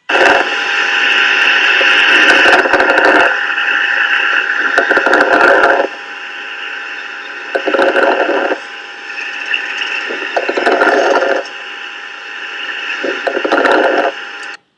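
A child's breath sounds recorded through a stethoscope: a noisy hiss with a long loud stretch at the start, then shorter swells about every two to three seconds as breaths come and go, with steady tones running underneath.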